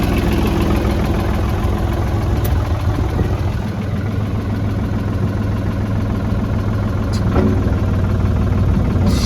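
Ford 550 tractor backhoe engine idling steadily, with a few brief clicks and a short rattle near the end.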